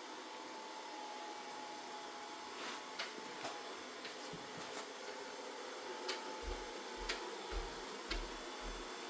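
Mova Z60 robot vacuum-mop running steadily with a faint whine, with scattered sharp clicks and, in the second half, a run of low thumps about two a second.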